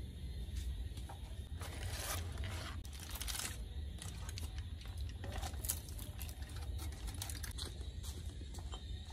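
Aluminium foil crinkling and rustling in several short bursts as a foil-wrapped parcel is handled and opened, with a few light clicks, over a steady low hum.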